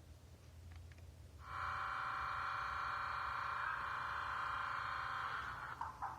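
Steam-locomotive whistle played by the ESU sound decoder of a BDZ 06 model locomotive: one long steady multi-tone blast starting about a second and a half in, lasting about four seconds and fading away. Near the end, the first regular exhaust chuffs begin.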